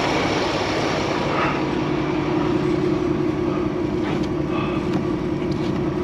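Semi-truck diesel engine idling with a steady drone.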